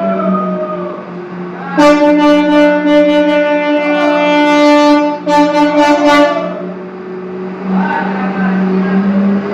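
Garbage truck's engine running with a steady hum, while a loud horn blares for about four and a half seconds, with a brief break near the end of the blast.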